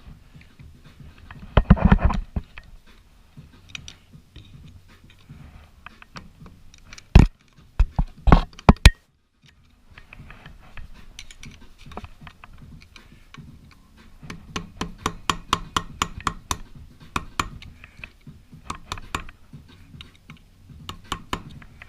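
Hammer striking a steel punch on the stake washer of a motorcycle clutch nut, knocking the staked tab back so the nut can come off. A quick flurry of taps about two seconds in, a few hard, sharp blows between about seven and nine seconds in, then a long run of lighter, rapid taps from about fourteen seconds on.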